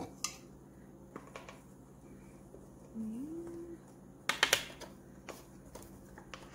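Measuring spoons and containers clicking and tapping against a mixing bowl while dry ingredients are measured out, with a quick cluster of sharp clicks about four seconds in. A short rising call sounds once about three seconds in.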